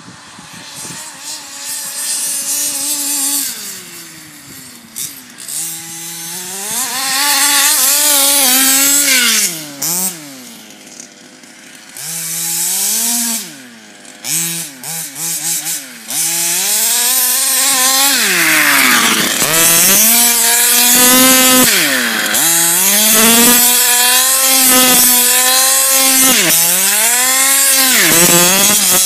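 Large-scale baja RC buggy's small two-stroke petrol engine, revving up and down repeatedly as the car is driven, its pitch rising and falling every second or two. It drops back to a quieter idle a few times in the first half and runs louder and harder through the second half.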